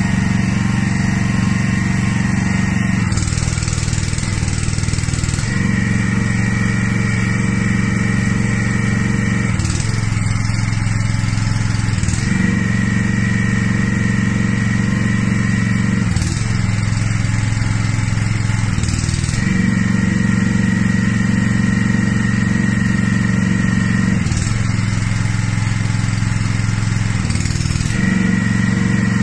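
A small gasoline engine drives a hydraulic pump at a steady run. Its note shifts every few seconds, with a hiss at times, as the remote-controlled valves switch the hydraulic cylinder between moving and holding.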